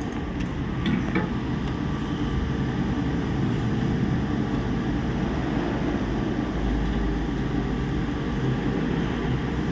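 Steady whirring hum of a fan, with a few faint clicks about a second in.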